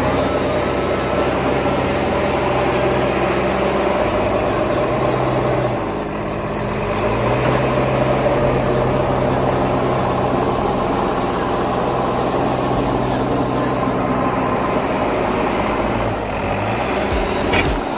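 Farm tractor's diesel engine running under load while the front loader works a gravel pile; the engine note drops about six seconds in and climbs back up a second later.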